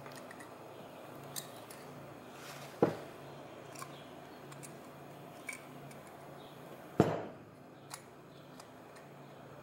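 Metal hydroboost parts being handled on a workbench: scattered small clinks and two louder knocks, about three and seven seconds in, over a faint steady hum.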